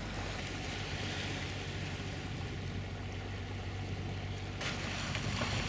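Water rushing along the hull of a Young 43 keelboat under way, with a steady low engine hum underneath. The noise shifts abruptly near the end.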